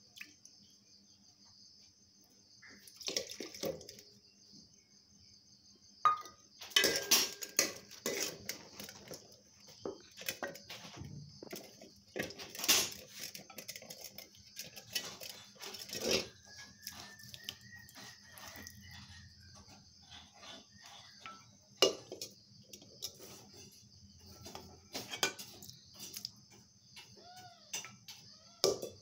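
Stainless-steel pots, bowls and a ladle clattering and clinking as they are knocked and handled, in irregular bursts of sharp clanks that are loudest a few seconds in and again midway. A steady high-pitched hiss runs underneath.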